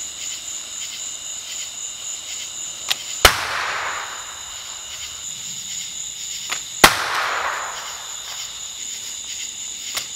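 Bow-shot exploding arrows: twice, the soft snap of the bowstring is followed about a third of a second later by a sharp bang as the arrow strikes the target and fires a powder-only .410 shotgun shell on its tip, each bang echoing briefly. Another bowstring release comes right at the end. Crickets chirp steadily throughout.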